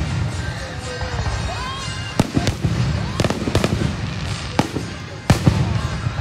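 Aerial firework shells bursting, several sharp bangs from about two seconds in, the loudest a little past five seconds in, over a continuous low rumble.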